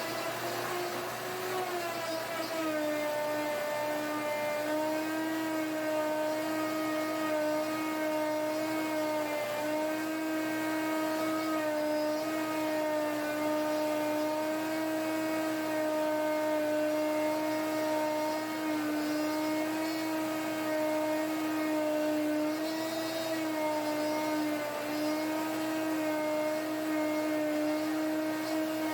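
Electric router running steadily as it cuts the thread of a wooden vise screw in a threading jig, with a shop vacuum running alongside for dust collection. The router's whine drops in pitch about two seconds in as it takes the load of the cut, then holds with small dips.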